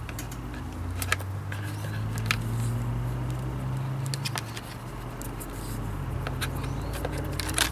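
Electrical tape being pulled off the roll and wrapped around a soldered wire joint: a few sharp clicks and small crackles. A low hum swells in the middle and then fades behind it.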